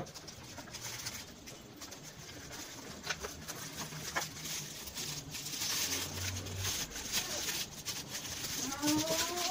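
Plastic packaging crinkling and rustling, with small clicks, as a hair clipper is lifted out of its plastic tray and its clear wrapping is handled. Near the end a long animal call begins in the background, held and then falling in pitch.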